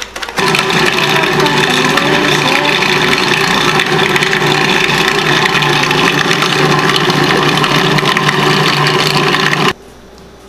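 Food processor motor running steadily, pureeing a thick chickpea batter with peanut butter mixed in. It starts about half a second in and is switched off abruptly near the end.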